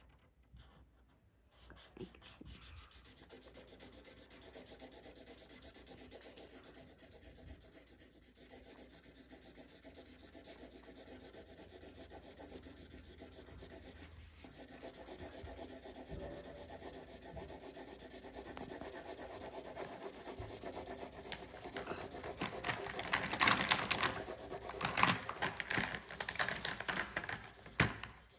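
Black Sharpie felt-tip marker scribbling back and forth on paper lying on a wooden table, colouring in a large area. The rubbing starts about two seconds in and gets louder and faster in the last several seconds.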